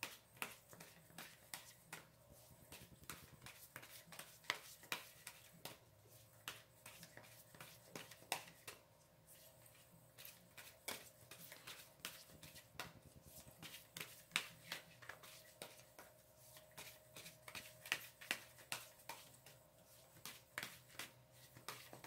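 A tarot deck being shuffled by hand: faint, irregular clicks and slaps of the cards, a few each second.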